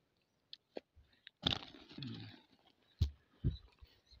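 Scattered light clicks, a crunching rustle and two sharp knocks: a cast net and freshly caught mullet being handled on gravelly ground.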